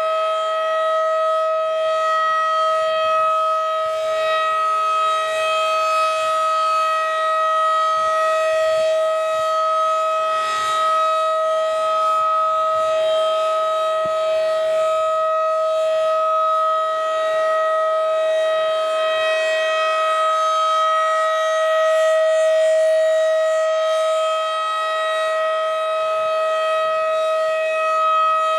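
Federal Signal 2001-DC outdoor tornado siren sounding a steady tone during its weekly test. The pitch holds level while the loudness swells and fades slightly as the horn turns.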